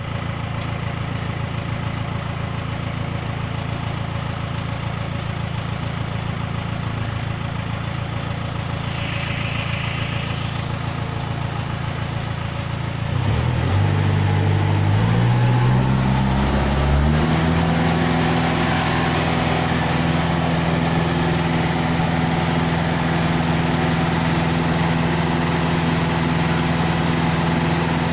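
Diesel engine of a self-loading concrete mixer idling steadily, then revving up about halfway through and holding at a higher, louder steady speed. A brief hiss comes in about a third of the way in.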